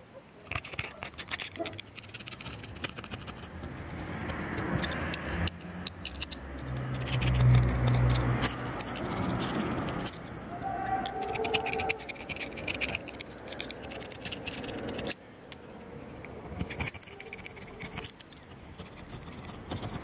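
Crickets chirping in a steady high trill, with scattered light clicks and a low rumble that swells and fades about halfway through.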